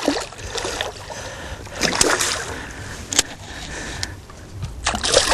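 Hooked young dourado thrashing and splashing at the surface beside a small aluminium boat, with a few sharp knocks, the loudest about three seconds in.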